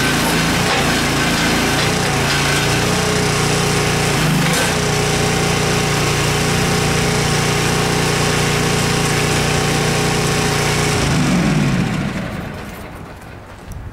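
Compact backhoe's engine running hard under hydraulic load, with a slight change about four and a half seconds in. About eleven seconds in, the revs fall away and the engine goes much quieter.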